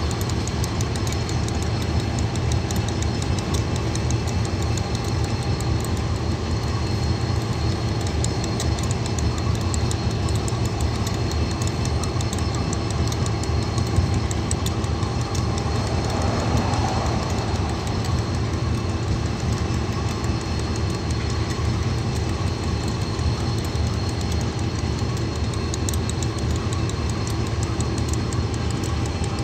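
KiwiRail DX-class diesel-electric locomotive idling steadily with a low engine hum as it turns slowly on a railway turntable.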